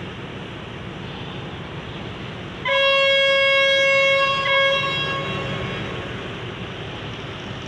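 Alsthom diesel locomotive's air horn sounding one long blast of about two seconds, starting about two and a half seconds in, briefly re-struck near its end and then fading. It plays over a steady rumble.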